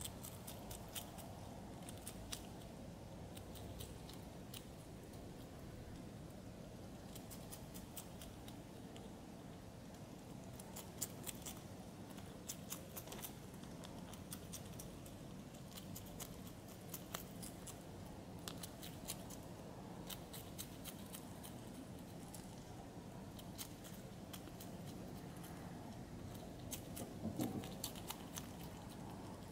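European hedgehog chewing mealworms: faint, irregular crunching clicks, often in quick clusters, over a low steady background hiss, with a brief louder noise near the end.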